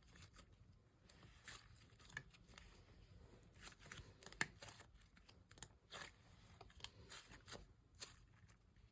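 Faint, scattered sticky clicks and crackles of butter-like slime being kneaded and stretched by hand, with toothpaste worked into it.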